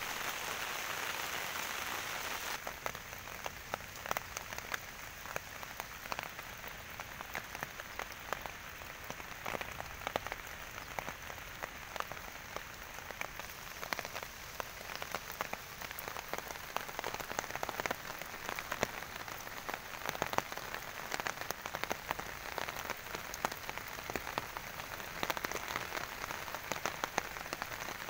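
Steady rain falling, a constant hiss with many sharp taps of single drops close by.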